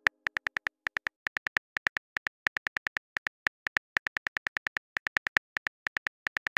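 Phone keyboard key-tap clicks from a texting app as a message is typed: a long run of short, crisp ticks at about five a second, slightly uneven.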